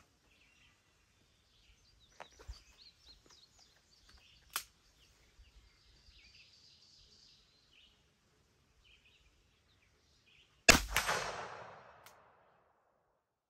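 A Smith & Wesson Model 629 .44 Magnum revolver with an 8 3/8-inch barrel fires a single shot after about ten seconds, a sharp report that echoes away over about a second and a half. Earlier there is one sharp click and some faint handling noise.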